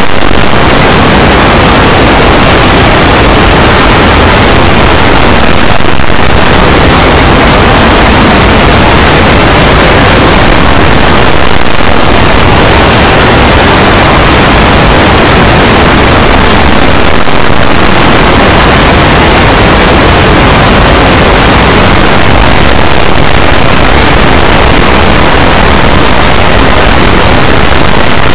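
A loud, distorted wash of noise: the soundtracks of many videos played at once, blended so that no single sound stands out. It dips slightly about every six seconds.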